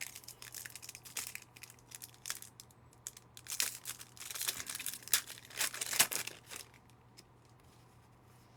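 Foil trading-card pack being torn open and crinkled, a run of crackly rips and rustles that are busiest around the middle and stop well before the end.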